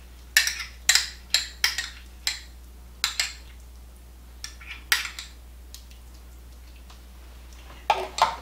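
A spoon scraping and tapping against a small metal can of tomato paste, a string of sharp clinks about half a second apart as the paste is knocked out, with one more clink a little later. After a pause, a few more clinks near the end.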